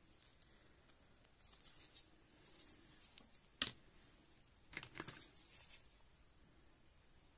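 Gloved hands handling clay sculpting tools: soft scraping and rustling, a single sharp click about three and a half seconds in, then a short run of clicks as metal and plastic tools knock together in a clear plastic tool box.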